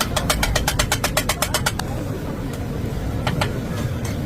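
A fast, even run of sharp taps, about seven a second for nearly two seconds, then a few single taps, over a steady low rumble of traffic.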